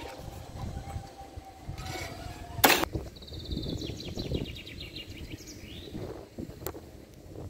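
Level-crossing barrier drive humming steadily as the booms rise, then a sharp clunk about two and a half seconds in as it stops. Right after, a songbird sings a short descending trill.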